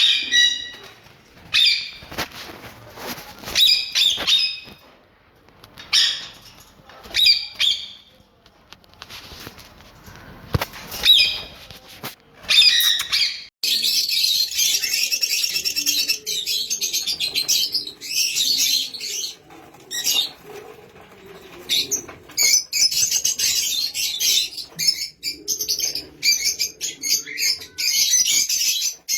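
Pet parrots calling: loud single chirps every second or two, then about halfway through many birds break into continuous busy chirping.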